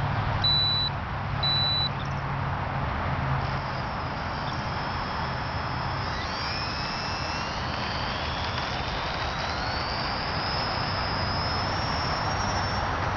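Twin electric motors of a ParkZone Mosquito RC plane whining, their pitch rising steadily from about six seconds in as the throttle opens for the takeoff run, over a steady hiss. Two short high beeps come near the start.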